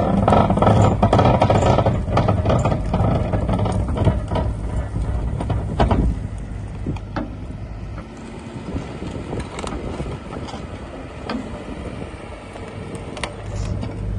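Hyundai Robex 140 LCD-7 excavator's diesel engine running under hydraulic load, with metallic clanks and knocks from the bucket and rotator. About six seconds in the engine quietens and only scattered clicks remain, then it picks up again near the end.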